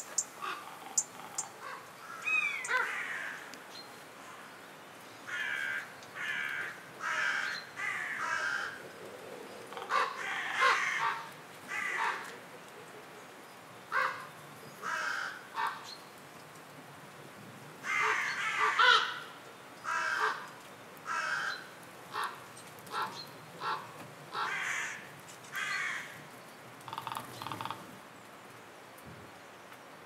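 Eurasian jays giving harsh, rasping screeches, many short calls one after another. A few sharp taps come in the first second or so.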